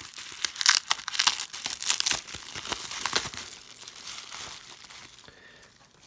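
Plastic or paper packaging crinkling and tearing as a mailed package of cards is opened by hand: a dense run of crackles for about three seconds, then fainter rustling that dies away near the end.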